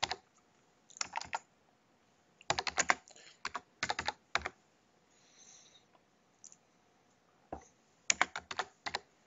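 Computer keyboard typing in short bursts of keystrokes, with pauses of a second or more between the groups.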